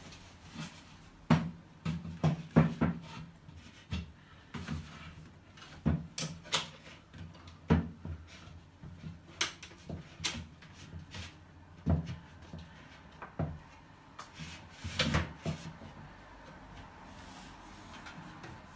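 Wooden vanity cupboard being shuffled and manoeuvred into place: a string of irregular wooden knocks, bumps and rubbing scrapes, some sharp and loud, others faint.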